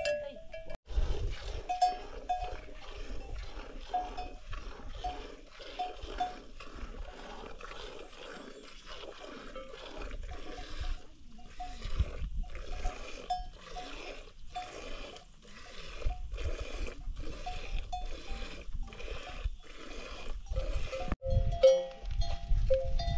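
Water buffalo being hand-milked: milk squirting into a pail in a steady rhythm of about two strokes a second. Small livestock bells clink over it, and there is a low rumble underneath.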